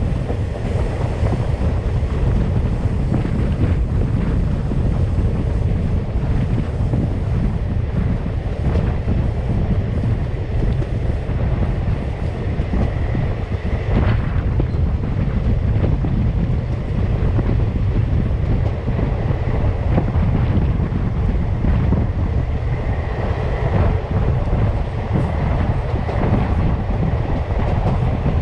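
Wind buffeting a microphone held out of a moving passenger train's coach, over the steady rumble of the coaches running on the track.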